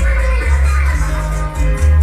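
Bachata music playing loud, with a heavy bass line changing note every half second or so.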